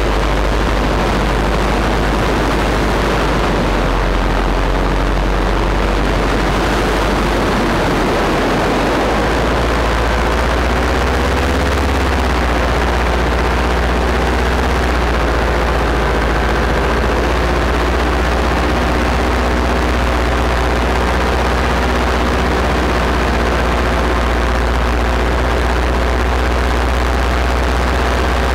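Paramotor engine running in flight, heard through wind noise on the microphone. From about nine seconds in, its steady engine note stands out more clearly, wavering briefly in pitch before holding steady.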